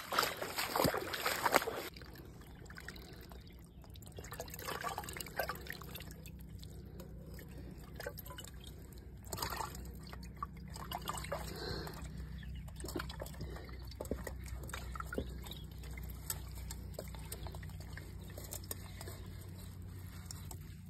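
Water splashing and dripping from a cloth-covered bowl fish trap lifted out of a shallow river, loudest in the first two seconds. After that, faint trickling water and light handling clicks of the bowl and cloth on the stones.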